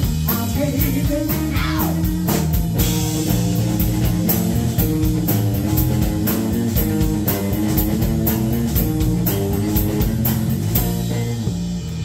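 Live rock band playing: electric guitars over a drum kit's steady beat, with singing.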